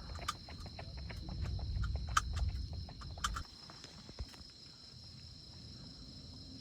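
Night insects, crickets, chirring steadily, under a low rumble that stops about three and a half seconds in, with scattered sharp clicks.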